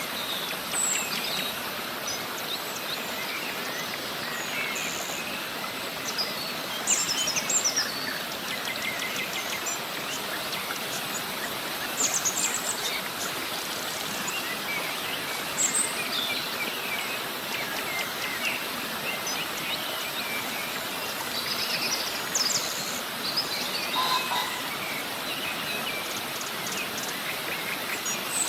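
Steady rush of a river cascade, with many birds chirping and trilling over it, the louder bursts of song coming every few seconds.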